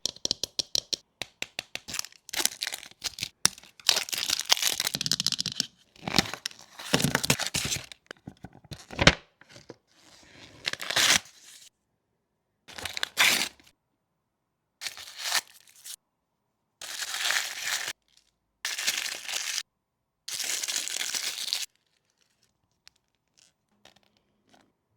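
Plastic toy packaging being torn open and crinkled by hand: quick crackles at first, then a series of tearing strokes each lasting a second or two, which stop about three-quarters of the way through, leaving only a few faint ticks.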